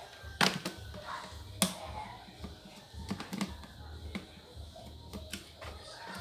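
Irregular sharp clicks and taps of a screwdriver working the screws on a laptop's plastic bottom cover, the loudest about half a second and a second and a half in.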